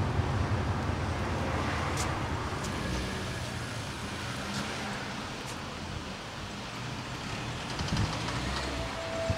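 Road traffic noise: cars running past on a street, a steady rumble with a few light ticks.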